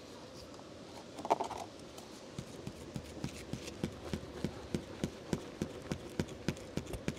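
A lighter struck about a second in, lighting kindling under firewood in a metal grill; then an even knocking, about three knocks a second, from some other source.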